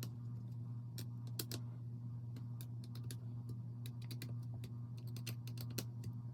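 Irregular small clicks and taps of hands and a small tool working on the hard plastic housing and screws of a Motorguide Xi3 trolling motor remote, over a steady low hum.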